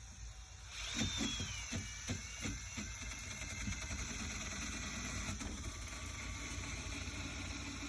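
Power grinder working old paint off a van hood: a high whine that falls in pitch about a second in, then a steady grinding run, with a few knocks early on.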